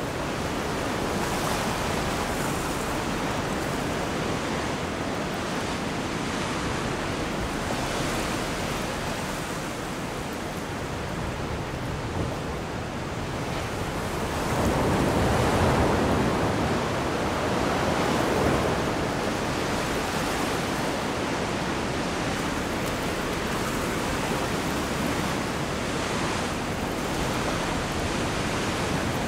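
Sea waves washing in a steady rush of noise, with wind; it swells louder for a few seconds about halfway through.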